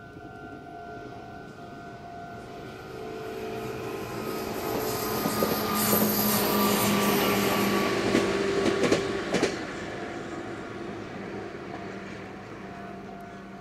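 Red Meitetsu electric train passing. Its sound builds to a peak about halfway through, with a quick run of clacks over the rail joints, then fades as it moves away.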